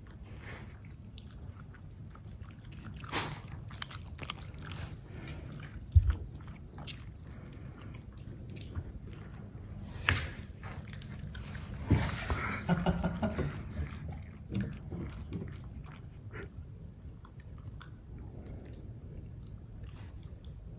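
Shiba Inu drinking pet milk, lapping and smacking in irregular wet clicks, busiest about twelve seconds in. A single sharp thump about six seconds in.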